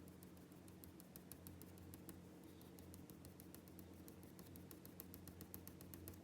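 Graphite pencil on paper making quick, short strokes several times a second, as in hatching or shading, faint against a steady low hum.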